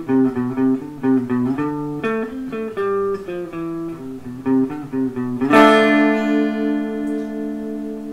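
Guitar music: a run of quick plucked notes, then a chord struck a little over five seconds in that rings on.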